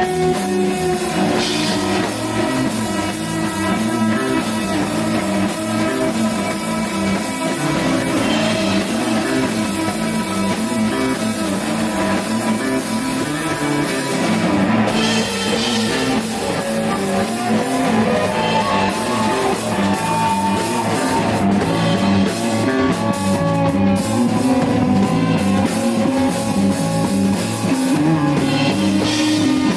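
Rock band playing live: electric guitar and bass over a drum kit, a steady groove with held guitar notes.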